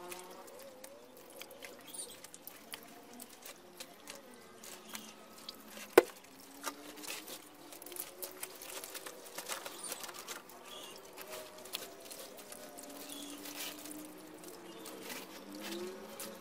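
Wet patter and splashing of hands, a net and catfish in shallow water, with many small clicks and one sharp knock about six seconds in. Faint squeaky, gliding tones run under it.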